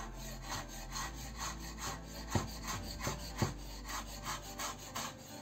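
Kitchen knife chopping fresh dill on a wooden cutting board: quick, even strokes of the blade knocking the board about four times a second, a few of them harder.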